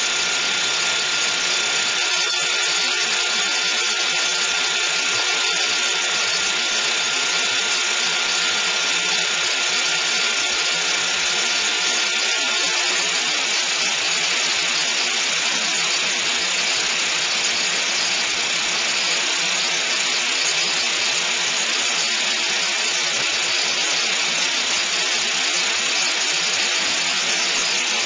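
Pneumatic conveying line running in dilute (suspension-flow) phase: a blower drives fast air carrying granular material through the transport pipe, making a steady, even rushing hiss. A faint thin whine in the mix stops about twelve seconds in.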